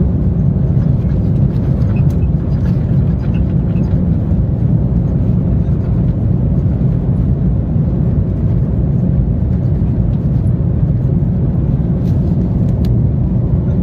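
Steady low rumble inside a Boeing airliner's cabin as it rolls down the runway just after landing: wheels and engine noise carried into the cabin.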